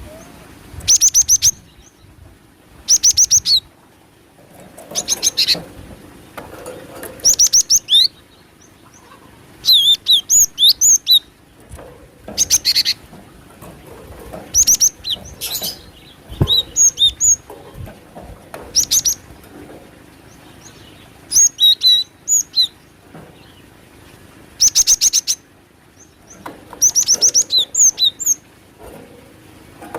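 Glatik batu (cinereous tit) calls from a bird-lure recording: short bursts of rapid, high chattering notes, repeated every one to two seconds.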